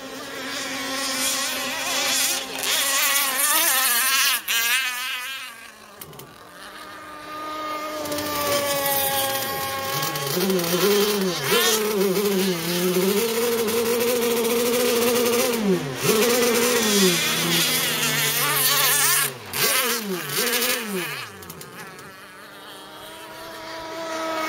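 Gas-powered RC racing boat's small two-stroke engine, a modified Zenoah, buzzing at high revs around the course. Its pitch wavers and rises and falls. It fades twice as the boat runs far off, and drops steeply several times about three-quarters of the way through as the boat sweeps past and turns.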